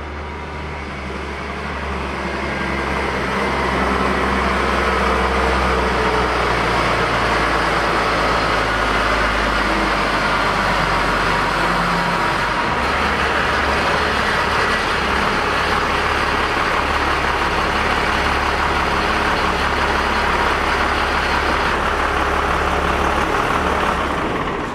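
A Chevrolet Silverado pickup's engine running as the truck is moved, growing louder over the first few seconds, with a shift in its low hum about halfway through, then fading out at the end.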